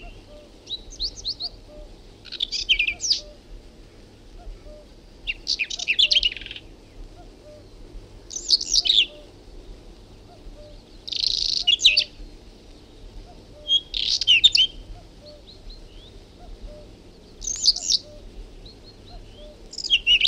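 Whinchat singing: short, high-pitched song phrases about a second long, repeated every two to three seconds.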